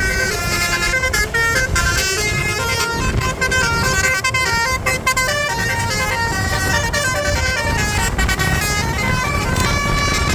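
A bus's basuri horn, a multi-note melodic telolet horn, plays a tune as a run of held notes that step from pitch to pitch, over a steady low rumble.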